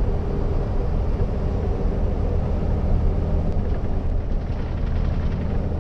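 Iveco truck's diesel engine running steadily at cruising speed, with road noise, heard from inside the cab.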